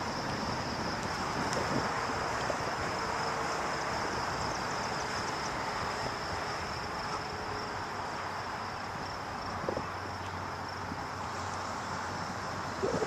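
Steady outdoor hiss of distant road traffic, with a constant high-pitched drone of insects over it.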